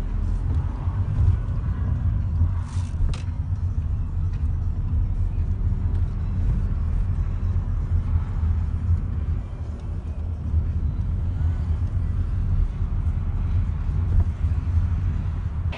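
Steady low rumble heard inside a moving car's cabin: the engine and tyres as the car drives along, with a couple of brief clicks about three seconds in.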